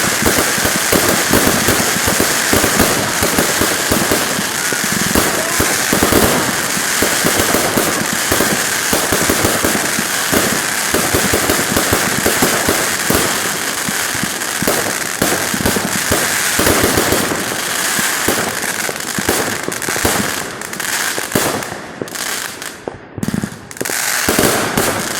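Fireworks display going off: a dense, continuous stream of popping and crackling that thins into separate pops near the end.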